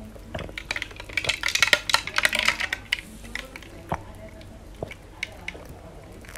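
A person gulping iced tea from a glass mug, heard up close: a dense run of quick wet swallowing and liquid sounds in the first half, then only a few scattered ones.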